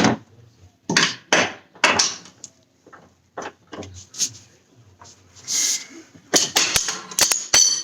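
Irregular sharp knocks and clatter from tools being used on the car, with a short burst of hiss a little after halfway and a quick run of knocks near the end.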